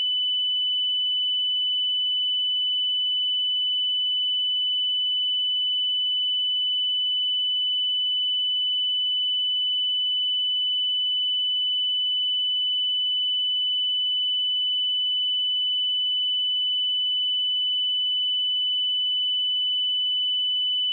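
A steady, unbroken 2994 Hz sine-wave test tone: a single high-pitched pure tone at constant loudness.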